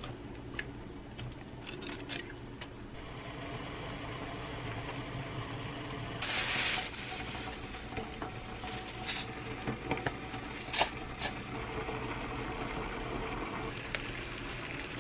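Kitchen cooking sounds from a pot of soybean-paste broth on an induction hob as vegetables are dropped in and stirred: scattered light clicks and taps, with a half-second burst of hiss about six seconds in, over a low steady hum.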